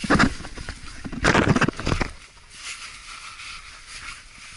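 Scraping and rustling handling noise as the camera moves against the wet logs of a cave entrance shaft. Two loud bursts come in the first two seconds, then it goes quieter.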